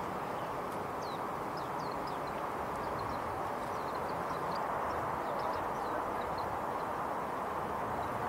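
Small wild birds giving many faint, short high chirps, over a steady low rumble that is the loudest sound throughout. The chirps thin out after about six seconds.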